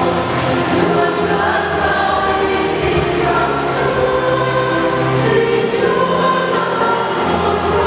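Church choir singing a slow hymn in long, held notes.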